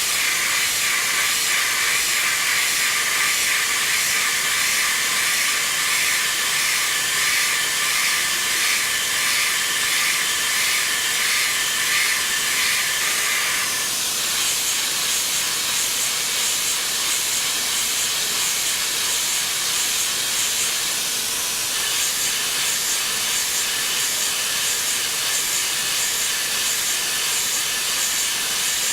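VEGA-600 chopping machine running with a steady, loud hiss and a faint regular pulse about twice a second. The pulse shifts higher in pitch about halfway through.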